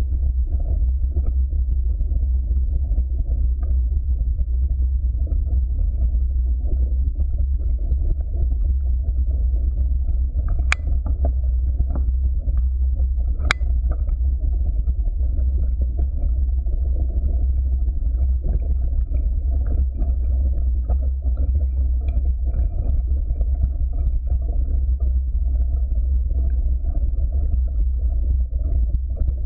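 Mountain bike descending a dirt forest trail, heard from a bike-mounted camera: a steady low rumble of wind and vibration on the microphone with tyre noise over dirt and leaves. Two sharp knocks, a few seconds apart, come about halfway through.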